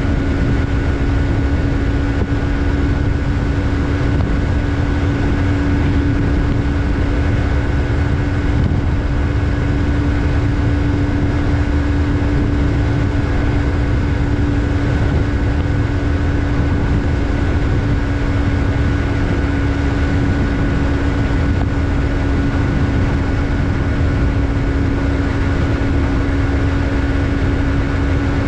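Yamaha MT-03 motorcycle's parallel-twin engine running at a steady engine speed, with an unchanging pitch and a heavy low rumble underneath.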